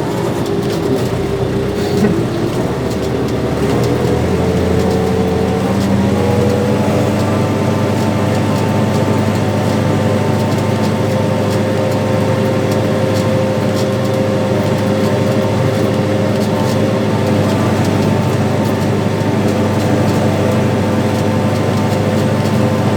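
Farm tractor's diesel engine pulling a seed planter. Its revs climb over a few seconds near the start, then hold steady.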